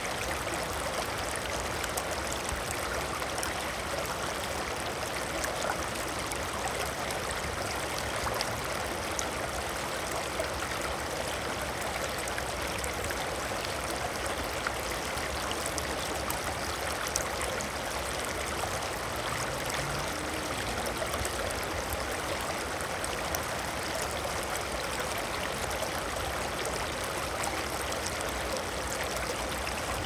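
Water flowing steadily, an even rushing sound with no rise and fall.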